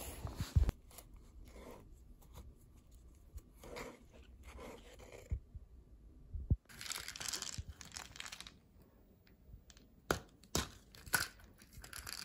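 Faint small handling sounds. Footsteps thump twice on a dirt path right at the start, then come scattered rustles, light crunching and a few sharp clicks.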